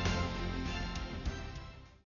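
Background music, fading out near the end.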